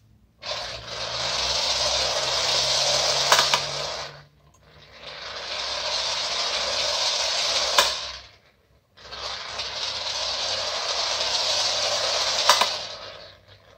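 Clockwork tin toy running: its wound spring motor whirs as the dog and cat figures circle the doghouse on wire arms. The whirr comes in three runs of about four seconds, each ending with a sharp click and a brief stop.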